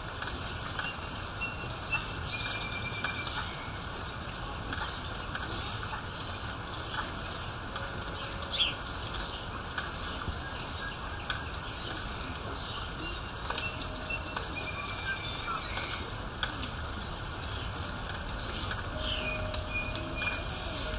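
Steady rain with a scatter of drips and splashes, while birds chirp and whistle now and then, with short falling calls about 8 seconds in and again near the end.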